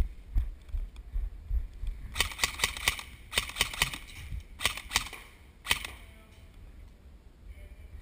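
Airsoft electric guns firing in short rapid bursts of pops, about four bursts in a row from a couple of seconds in, the last a single shot.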